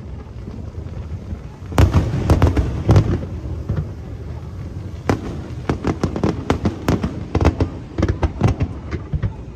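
Aerial fireworks shells bursting. There are a few light pops at first, then a cluster of loud booms about two seconds in, and a quick run of sharp cracks and bangs over the last few seconds.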